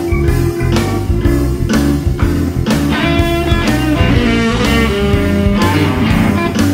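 Electric guitar, a Strat-style solid-body, playing a rock-blues line over a backing track with bass and a steady drum beat.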